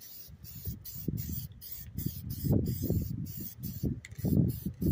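Aerosol can of matte clear coat spraying in quick short bursts, about two or three a second. Gusty wind rumble on the microphone underneath is the loudest part.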